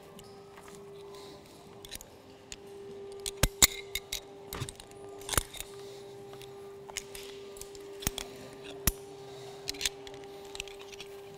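Metal rope-access hardware, carabiners and ascender and descender devices on a harness, clicking and clinking as it is handled and clipped during a changeover on the ropes. The clicks come irregularly, loudest in a cluster about three and a half seconds in, over a steady low hum.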